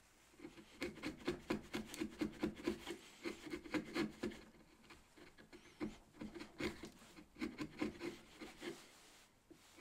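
Bench chisel paring a chamfer along the end of a wooden mallet handle: a run of short, light scraping cuts, several a second, with a brief lull about halfway through.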